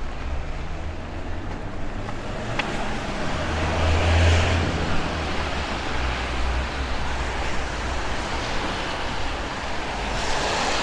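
Road traffic on a wet street: steady tyre hiss and engine rumble, with one car passing loudest about four seconds in.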